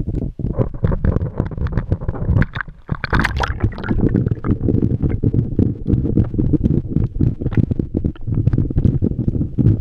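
Muffled underwater sound heard through a GoPro's waterproof housing: a constant low rumble of moving water, with frequent small clicks and knocks. About three seconds in there is a brief, brighter rush of splashing or bubbling.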